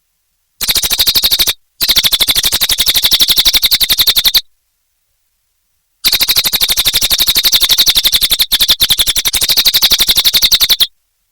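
A cililin songbird singing a rapid, evenly spaced chattering trill, in three bursts: a short one near the start, a longer one from about 2 to 4.5 seconds, and a long one from about 6 to 11 seconds.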